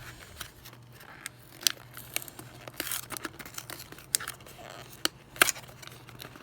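Packaging being handled and opened by hand: irregular crinkling and rustling with scattered sharp clicks and short tearing sounds.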